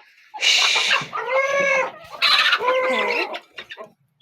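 Chickens squawking: two harsh, noisy calls, each running into a drawn-out, wavering cry.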